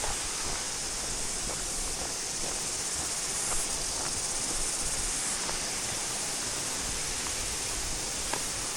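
Waterfall cascade: a steady rush of falling water, with a few faint ticks.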